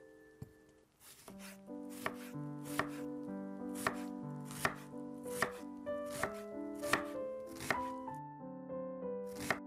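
Kitchen knife dicing an onion on a wooden cutting board: sharp chops against the board a little more than once a second. Background piano music comes in about a second in.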